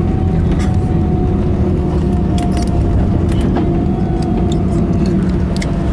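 Cabin noise of an Airbus A320 rolling on the ground after landing: a steady loud rumble with a constant engine whine, and scattered light rattles and clicks from the cabin fittings.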